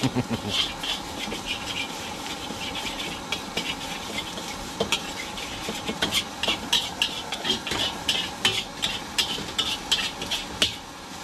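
Metal spatula clanking and scraping against a steel wok as fried rice is stirred and tossed, with irregular quick strokes that come thickest in the second half. A steady hiss runs underneath.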